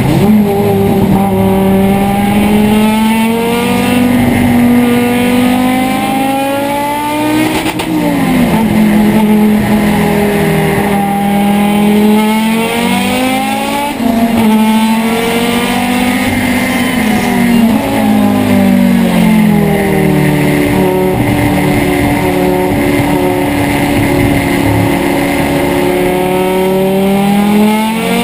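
Turbocharged 2.2-litre five-cylinder engine of a 1981 Audi Urquattro race car, heard from inside the cockpit, pulling hard under race load. Its pitch climbs and falls through the gears, with sharp drops and dips in level about seven and a half and fourteen seconds in.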